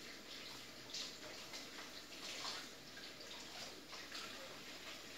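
Water running from a sink tap, with uneven splashing.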